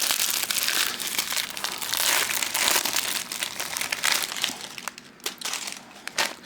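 Crinkling and crackling of a microwave pork rind bag and its plastic overwrap as it is handled, with many small crackles, easing off for a moment near the end.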